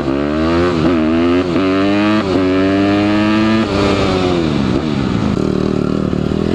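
Dirt bike engine accelerating and shifting up through the gears, its pitch climbing and dropping back three times, then holding steady before falling away as the throttle is closed, about four seconds in.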